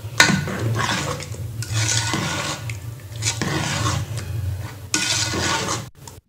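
An orange spatula stirring thick, sticky sweet pongal of mashed rice, moong dal and jaggery syrup in a pressure-cooker pot, folding in ghee-fried cashews and raisins. The stirring comes as repeated swishing, scraping strokes against the pot, about one every second and a half.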